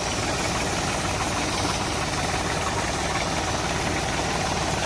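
A motor running steadily with a fast, even low pulse, under a constant hiss of water being sprayed over a tractor; the hiss comes up at the start.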